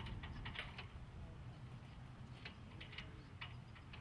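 Light, irregular clicks and ticks from metal panel-mounting hardware being worked by hand, over a steady low outdoor rumble.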